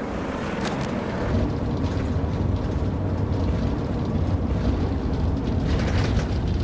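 Engine running steadily with a low rumble and road noise, strengthening about a second and a half in.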